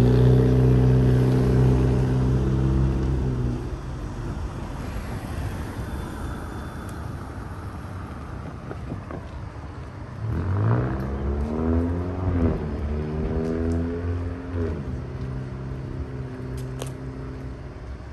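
Road traffic at a street crossing: one vehicle's engine runs steadily and fades after about three and a half seconds, then about ten seconds in another vehicle accelerates away, its engine note climbing and dropping with gear changes.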